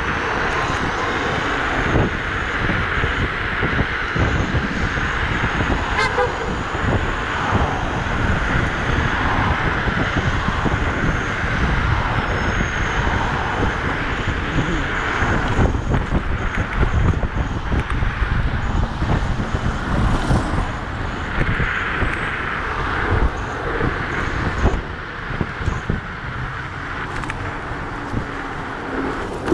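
Gusting wind on the microphone and the rush of tyres and city traffic at riding speed on an electric scooter.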